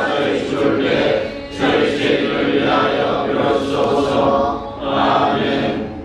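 Congregation reciting a Catholic prayer aloud in unison, in the sing-song chanting style of Korean Catholic group prayer, with brief pauses for breath about a second and a half in and near the end.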